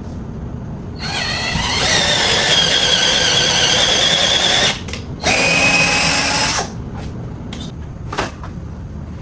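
Power drill drilling into a wall stud in two runs: a whine that rises as the bit spins up and holds for about four seconds, then a brief pause and a second run of about a second and a half.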